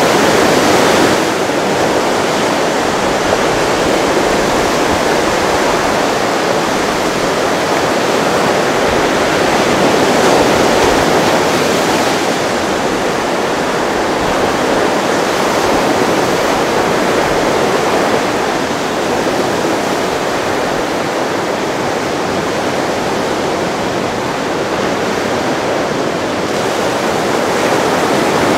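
Ocean waves breaking and whitewater washing in: a steady rush of surf noise that swells and eases a little, with a slight drop in level about a second in.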